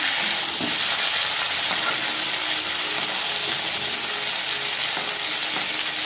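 Giant freshwater prawns frying in hot mustard oil in a kadai, a steady sizzle of bubbling oil.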